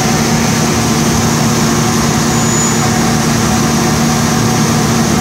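Steady low hum of a CNC door machining center's shaper spindles running, even in level, with no cut starting or stopping.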